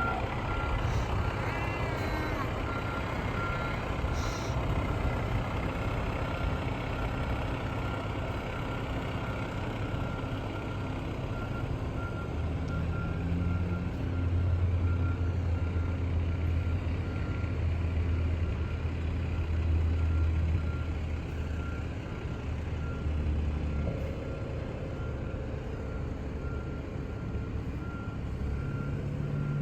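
Fire engine backing in with its reversing beeper sounding a steady, evenly repeated beep over the low running of its engine. The engine grows louder for several seconds about halfway through, then eases off.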